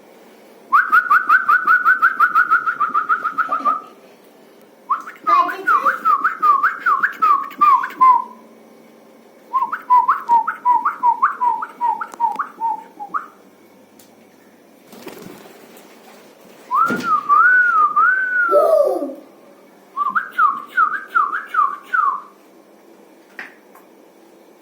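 High whistled trills and chirps in five bursts of a few seconds each, the notes repeating several times a second around one pitch, with one longer wavering whistle a little past the middle.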